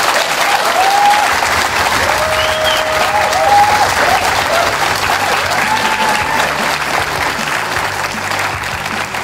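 Audience applauding loudly, a dense even clapping.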